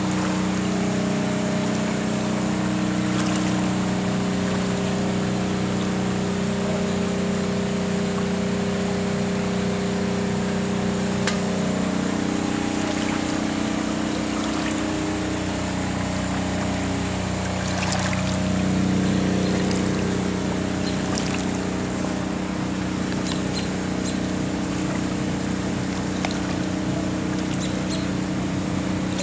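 Flood-water pumps running with a steady hum of several pitches that shifts a little midway, over water trickling and pouring.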